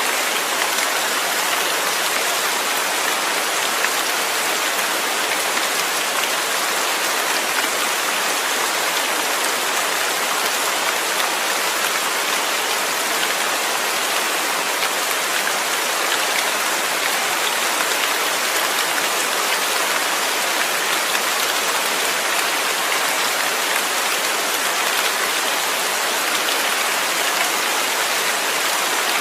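Steady rain falling, an even hiss of drops with no pauses.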